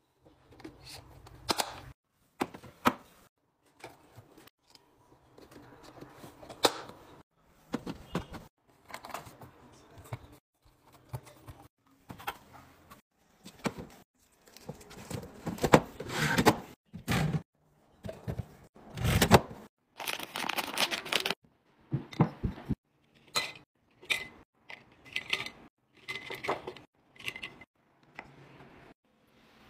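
Food containers being handled and stocked: plastic and glass containers set down, lids pressed on and fitted, and packaging handled. It comes as a run of clicks, knocks and short rustles, broken by abrupt silent gaps.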